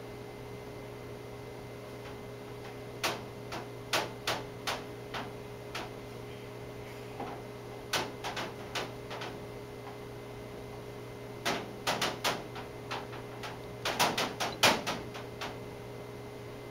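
A baby playing with a wire and the things around it, making irregular sharp clicks and taps in three flurries, the busiest and loudest near the end, over a steady hum.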